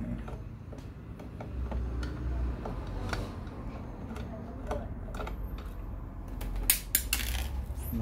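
Small metallic clicks and scrapes of a Phillips screwdriver turning out the screws of an all-in-one PC's metal stand hinge, with a few sharper clicks near the end.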